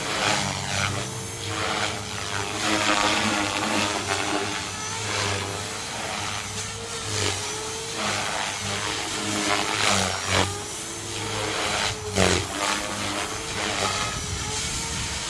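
Electric flybarless remote-control helicopter in flight, its rotor and motor whine wavering up and down in pitch as it manoeuvres, with several loud rushes of noise, the strongest about 12 seconds in.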